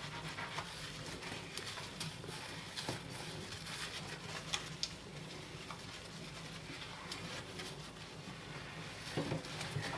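Soapy sponge scrubbing a glass gas hob, with scattered light clicks and taps as the hand works around the burners.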